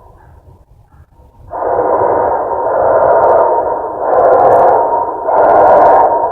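Loud droning noise with a steady tone running through it, starting about a second and a half in and coming in four swells of about a second each: the unexplained noise from the sky that the uploader at first took for bad pipes.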